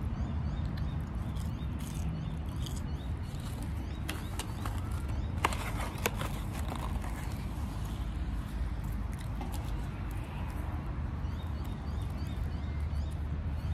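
A steady low rumble with faint bird chirps over it, and two sharp clicks about halfway through as the cardboard chicken-fries box is handled close to the microphone.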